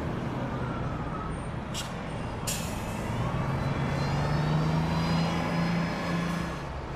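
City bus at a stop: two short hisses of its air brakes about two seconds in, over a running engine that grows louder from about three seconds in.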